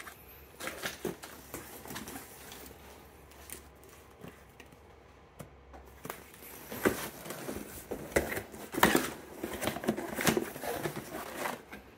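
Handling noise from vacuum-sealed plastic steak packs and cardboard boxes: plastic crinkling and cardboard rustling, scraping and knocking. It is sparse at first, then busier and louder from about halfway through, as a box is moved into a shipping carton.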